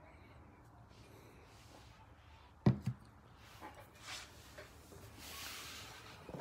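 A small shot glass set down on a hard surface: two sharp knocks in quick succession, followed by soft rustling as the phone is handled.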